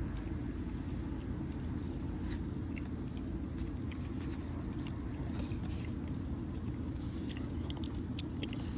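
Faint rustling and small clicks of baseball trading cards being handled and slid through the fingers, over a steady low background hum.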